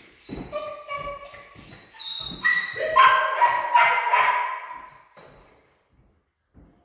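A dog whining: a run of short high-pitched whimpers, then louder, longer whines from about two and a half seconds in, dying away about two seconds later.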